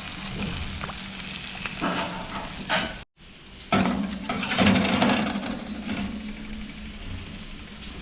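Barjack fillets coated in egg and flour frying and sizzling in a pan. The sound cuts out briefly about three seconds in and comes back louder.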